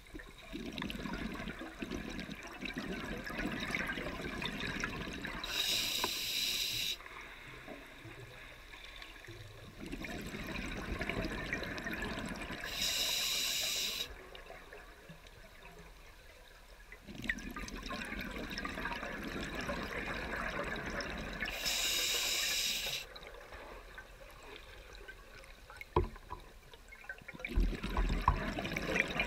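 A scuba diver breathing underwater, three breaths about eight seconds apart: each a few seconds of bubbling exhaust from the regulator followed by about a second of hissing as the regulator delivers air on the inhale, with quieter gaps between. A few knocks near the end.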